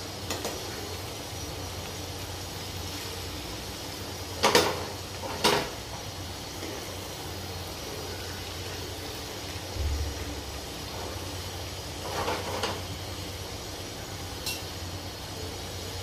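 A spatula stirring and scraping masala-coated chicken pieces in a nonstick pan, with two loud scrapes about halfway through and softer ones later, over a steady background hum.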